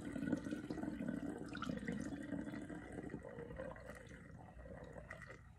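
Kitchen tap running into a sink while a kombucha brewing vessel is rinsed under it, getting quieter towards the end.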